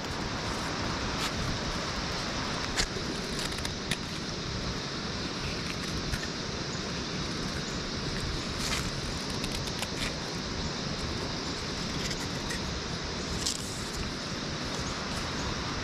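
Steady outdoor background hiss with a few faint, sharp knocks at irregular intervals.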